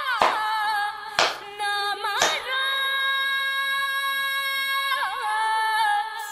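A woman singing a slow melody with long held notes that waver slightly in pitch. Three sharp hand claps land about a second apart in the first few seconds.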